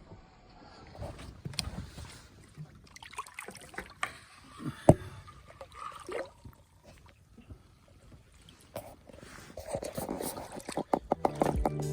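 Water splashing and sloshing with scattered knocks and clicks, one sharp knock about five seconds in. Music begins at the very end.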